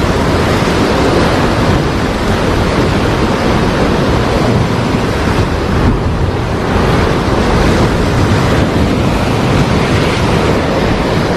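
Large waves breaking on the shore during a big high-tide swell: a loud, continuous wash of surf, with wind on the microphone.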